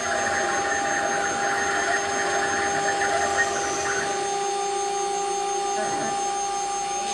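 Four-spindle 4-axis CNC router carving wood, the spindle motors giving a steady whine. The cutting noise of the bits in the wood is stronger for the first four seconds or so, then eases off.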